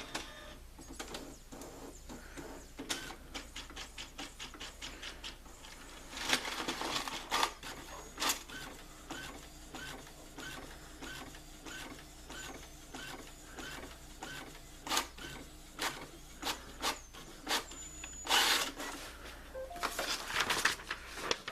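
Brother inkjet printer printing a nozzle-check test page after a print-head cleaning: a quick run of clicks, then paper-feed whirs, with the print head shuttling across in evenly spaced ticks about twice a second.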